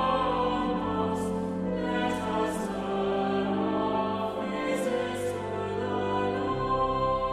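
Choir singing slow sacred music in long held notes, the words carried on sustained chords.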